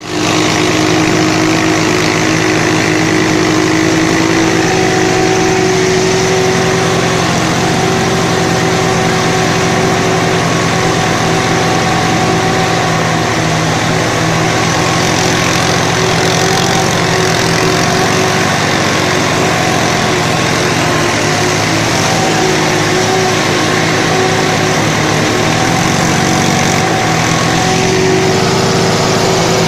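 An engine running steadily under a loud, even hiss of heavy rain.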